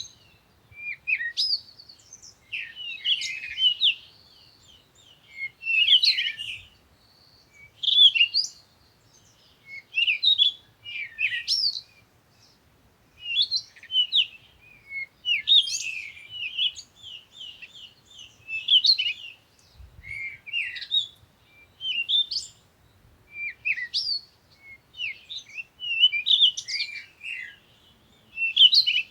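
Songbirds singing: quick, twittering phrases of high chirps, one phrase every second or two with short pauses between.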